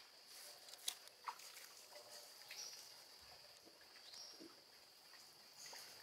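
Jungle ambience: a steady high-pitched insect drone, with two sharp snaps about a second in and a couple of short, falling high-pitched calls later on.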